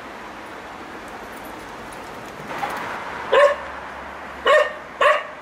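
Young male cocker spaniel barking outdoors: three short barks in the second half, over a steady background hiss.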